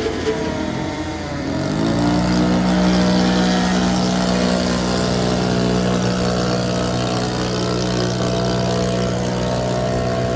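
An engine speeds up about a second and a half in, then holds at a steady high speed.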